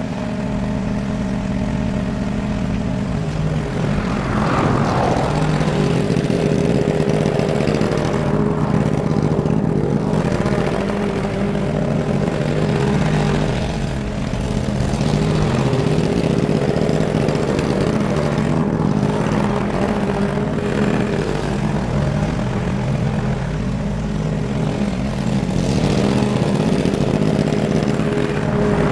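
Walk-behind petrol rotary lawn mower running steadily at full throttle while cutting rain-wet grass. Its level swells and dips a few times as it moves back and forth across the lawn.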